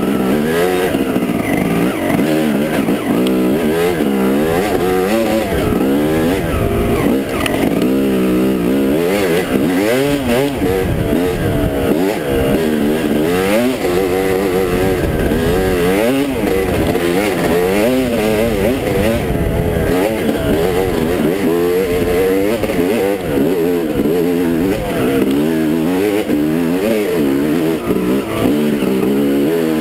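Dirt bike engine revving up and down continuously as it is ridden along a trail, its pitch rising and falling with throttle and gear changes.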